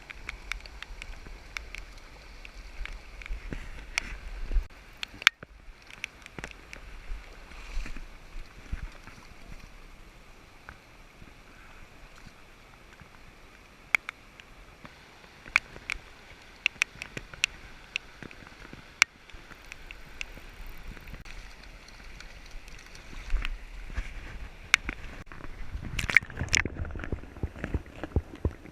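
Steady rush of river water and falling rain, with irregular sharp ticks of raindrops striking close by. A low rumble comes in at the start and again near the end.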